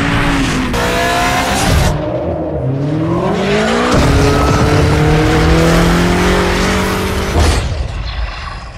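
A high-performance car engine revving hard while its tyres spin and squeal. The revs climb about three seconds in, hold high and steady, then fall away near the end.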